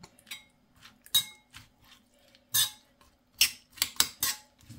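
A metal spoon clinking against a ceramic bowl as a chopped tomato, onion and garlic mixture is stirred with soy sauce: about six separate clinks, several in quick succession near the end.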